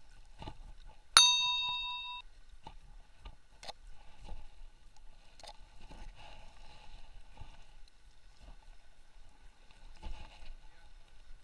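A single bright bell ding about a second in, ringing out for about a second: the notification-bell sound effect of a like-and-subscribe animation. A few faint clicks follow.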